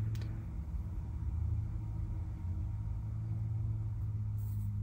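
A steady low hum, with a brief click at the very start.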